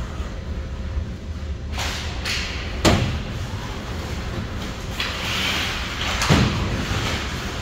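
Hockey game play: two loud bangs about three and a half seconds apart, like the puck or players hitting the boards, with a scraping hiss between them over the rink's steady background noise.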